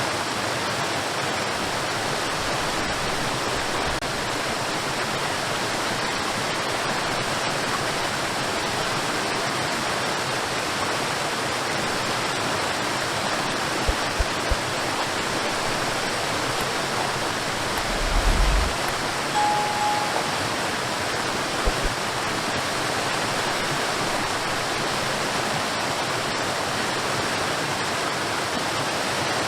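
Cordless stick vacuum cleaner running steadily, its motor and airflow making an even rushing hiss, with a few brief low bumps near the middle.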